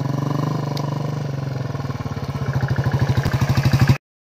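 Royal Enfield Classic 350's single-cylinder engine thumping in a quick, even beat as the bike comes up a dirt slope, growing louder as it draws near, then cutting off abruptly near the end.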